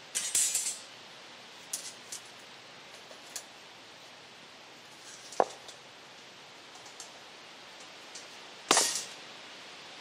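Steel rebar being handled and laid on a gravel slab base: two short scraping rattles, one right at the start and one about a second before the end, and a single sharp metallic clink about halfway through, with light clicks in between.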